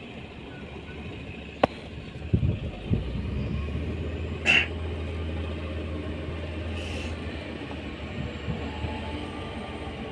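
An excavator's engine and hydraulics drone steadily, getting louder about three seconds in. Over the drone come a sharp metallic click, a few knocks as hands work at the main control valve block, and a short hiss about four and a half seconds in.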